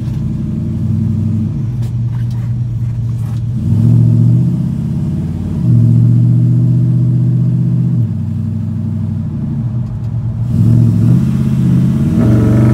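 Small-block Chevy V8 in a 1977 Chevy C10, heard from inside the cab through Patriot headers and Flowmaster Hushpower HP-2 mufflers. It is driving and accelerating: the exhaust note climbs and drops several times, loudest about four and six seconds in and again near the end.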